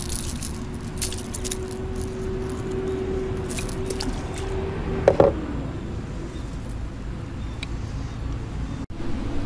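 Light metallic clinking of fishing pliers against a lure's hook while a small bass is unhooked, over wind rumble on the microphone. A steady low hum runs underneath and stops about five seconds in, where there is one short, louder sound.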